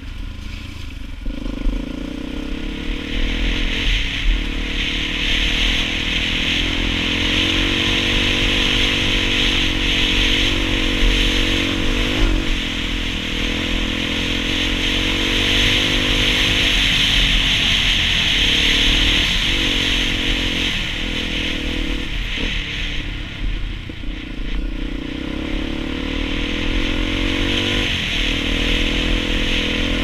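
Dirt bike engine running at speed, its note rising and falling with the throttle and dipping briefly several times as the rider eases off or shifts, over a steady rush of wind and road noise.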